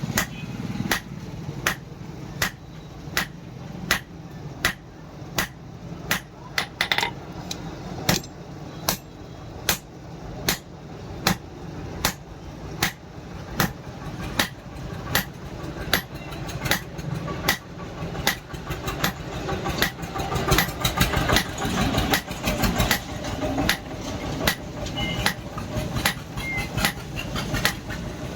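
Blacksmith's hammer striking leaf-spring steel being forged into a spear, about two sharp blows a second, coming faster and closer together past the middle, over a steady low hum.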